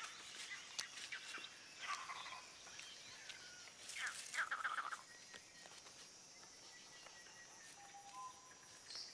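Faint woodland ambience with scattered bird calls: a couple of short calls about two seconds in, a falling call that breaks into a quick trill about four seconds in, and a brief whistle near the end, over a faint steady high hum.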